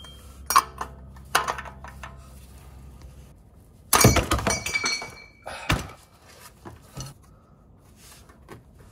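Metal hand tools clinking and knocking as a cap-type oil filter wrench and ratchet are fitted onto the oil filter housing. There are a couple of single knocks, then a loud ringing clatter about four seconds in, and a few lighter knocks after it.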